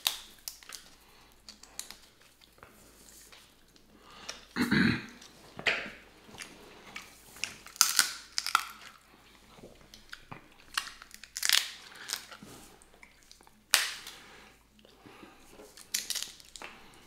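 Snow crab leg shells cracking and snapping in the hands, with wet sucking and chewing as the meat is eaten. The sharp cracks come irregularly, about every second or two.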